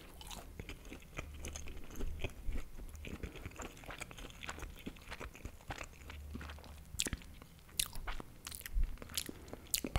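Close-miked eating of an empanada: a bite into the crisp pastry, then chewing with many small crunches, and a few louder crunches from about seven seconds in.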